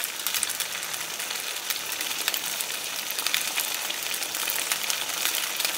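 Sliced chicken breast searing in hot vegetable oil in a pan: a steady sizzle with many small crackles and pops.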